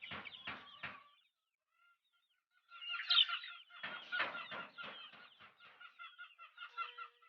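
Philippine native chickens clucking: a quick cluster of sharp calls in the first second, then after a short pause a run of repeated clucks and calls.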